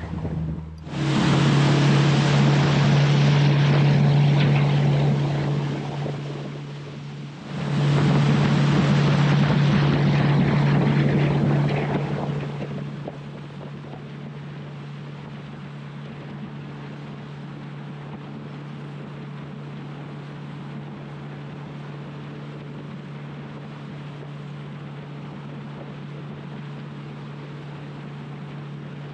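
Small fishing boat's motor running steadily under way, a constant low hum. For two stretches of several seconds in the first half a loud rushing noise rises over it, then eases off, leaving the engine hum alone.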